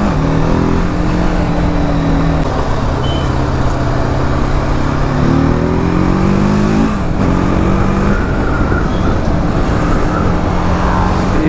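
TVS Apache RTR 310's 312 cc single-cylinder engine pulling under way, holding a steady note, then climbing in pitch as it accelerates about five seconds in and dropping at an upshift about seven seconds in before settling again.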